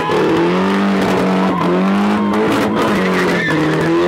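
Nissan 240SX doing a burnout: the engine is held high in the revs, its pitch wavering slightly up and down, while the rear tyres spin and squeal on the pavement.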